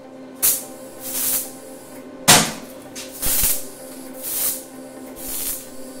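A run of short hissing bursts, about one a second, the sharpest just past two seconds in, over background music with a steady hum.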